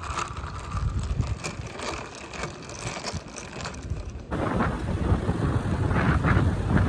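Ice cubes clinking and rattling in a plastic cup as an iced coffee is stirred with a straw. After about four seconds the sound changes abruptly to louder wind buffeting the microphone and road noise from a moving motorcycle.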